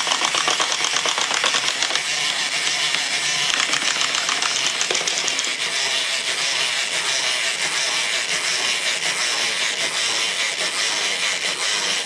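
Wind-up chattering teeth and a wind-up waddling duck running together: a rapid, steady clatter of clockwork clicks and plastic rattling.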